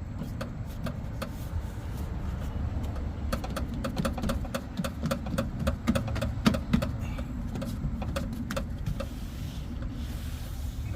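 Plastic door vapor barrier crinkling and crackling as it is handled and pressed back onto the inner door, a run of quick clicks densest in the middle, over a steady low rumble.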